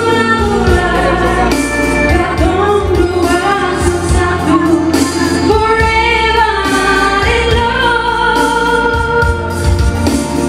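A woman singing long held notes into a microphone over amplified live band accompaniment with a steady bass.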